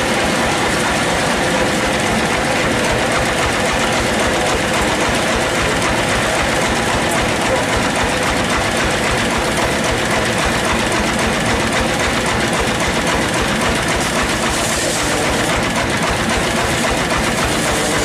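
Sawmill band-saw machinery running steadily: a loud, unbroken mechanical din with a fast low rattle.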